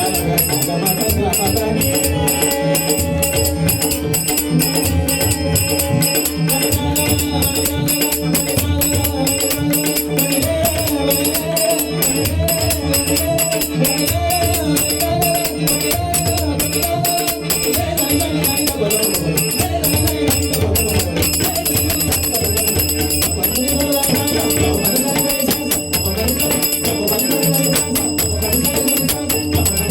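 Devotional bhajan music: a singer's voice on an abhang over steady sustained accompaniment, with jingling hand percussion keeping a fast, even beat.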